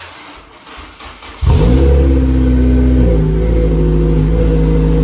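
Honda S2000 AP1's 2.0-litre F20C four-cylinder cranking on the starter with a weak-sounding battery, then catching about a second and a half in, revving up briefly and settling into a steady idle. This is the first start after the no-start was traced to a broken main relay and the fuel pump was replaced.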